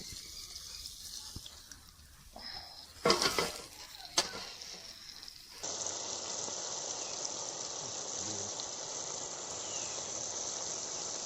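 Coated chicken pieces deep-frying in hot oil: a few short knocks and rattles, then from about halfway a steady, even sizzle.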